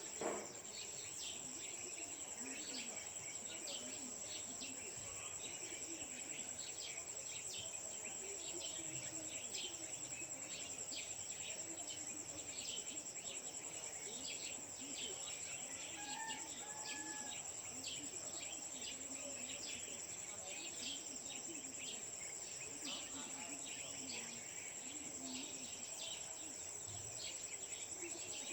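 Early-morning chorus of crickets or similar insects keeping up a steady high trill, with many short bird chirps over it and a faint murmur of distant voices. A single knock sounds just after the start.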